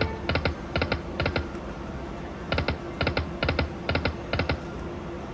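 Lightning Link slot machine sound effects: clusters of quick, sharp ticks, about two clusters a second, with a pause of about a second between the first three and the next five.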